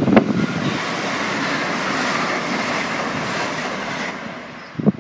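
LNER Azuma high-speed train passing the level crossing at speed: a steady rush of wheel and air noise that dies away about four seconds in. A brief thump comes near the end.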